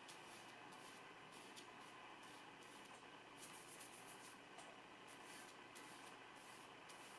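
Faint, irregular swishes of a flat hog-bristle brush working oil paint on a palette, over a low steady hum.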